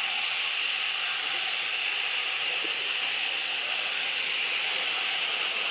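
Steady, even high-pitched hiss with no breaks or changes.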